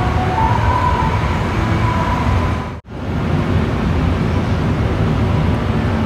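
Steady rumble and hiss of a large, near-empty department store's interior, with a faint high whine in the first second. The sound drops out sharply for an instant about three seconds in, then resumes as before.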